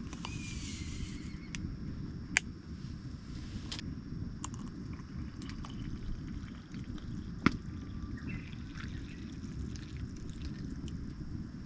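Liquid poured briefly into a vessel at the start, then a few light clicks and knocks of camp utensils over a steady low rumble.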